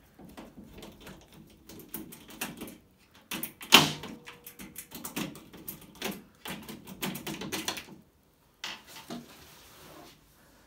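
Washing machine casing being handled as its top panel is worked off: irregular knocks, clicks and rattles, with one sharp loud knock about four seconds in.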